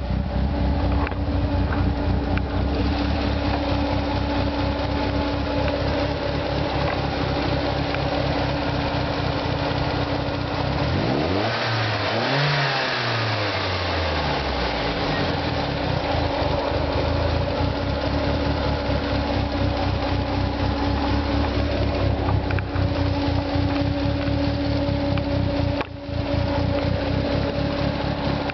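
Turbocharged BMW M42 1.8-litre four-cylinder engine idling steadily. About eleven seconds in, one throttle blip sends the revs up and back down to idle over about three seconds.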